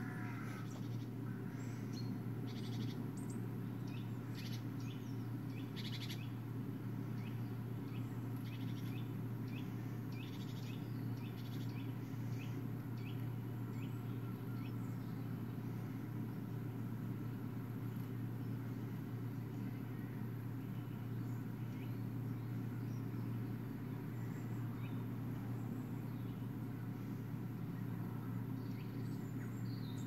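Small songbirds chirping and calling, many short chirps scattered throughout, played from a bird video on a computer's speakers, over a steady low hum.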